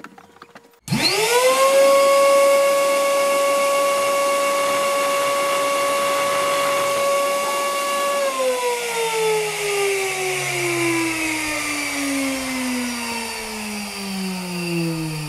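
Precise Super 60 high-speed electric grinder starting up about a second in, its whine climbing quickly to a steady high pitch. It holds for about seven seconds, then falls steadily in pitch as the motor winds down.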